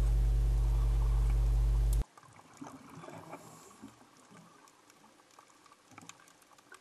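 A steady low underwater hum with several held tones, cut off abruptly about two seconds in; after it, faint bubbling and small clicks.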